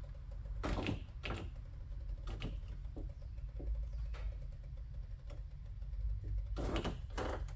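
Scattered rustles, scrapes and clicks of gloved hands working inside a truck door behind its plastic vapor barrier, with a denser flurry near the end, over a low steady hum.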